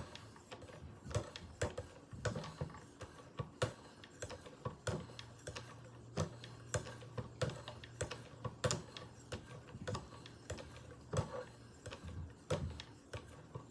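3000-grit sharpening stone drawn with light pressure along a steel knife edge held in a guided angle sharpener: a steady rhythm of short ticking scrapes, about one stroke every 0.6 seconds.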